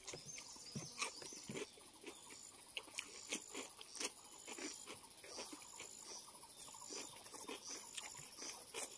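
Faint close-miked eating sounds: chewing, lip smacking and fingers squishing into rice and pork, heard as scattered small clicks and smacks.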